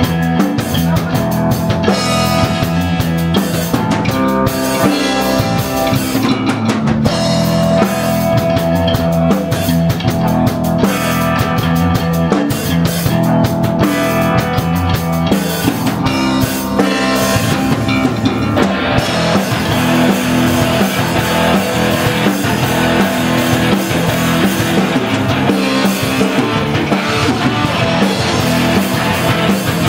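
Rock band playing live: electric guitar through an amplifier over a drum kit. The music grows denser and fuller about two-thirds of the way through.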